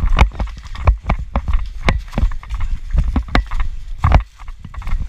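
Running footsteps: a quick, uneven string of thuds and knocks, several a second.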